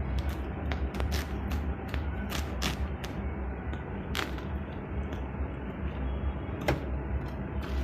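Parcel packaging being handled and opened: irregular sharp clicks and crackles, a couple of them louder (around four seconds in and near the end), over a steady low hum.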